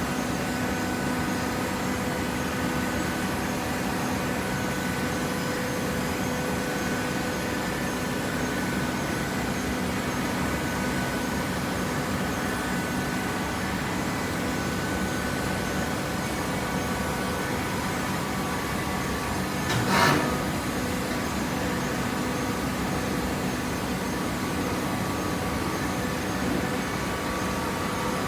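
Cardboard box baler's single-phase electric motor and hydraulic pump running with a steady hum, with one loud knock about 20 seconds in.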